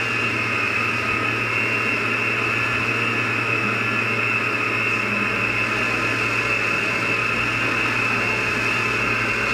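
Electric stand mixer running at a steady speed, a constant motor hum with a high whine, as it beats the eggs, sugar and lard for the pabassinas dough.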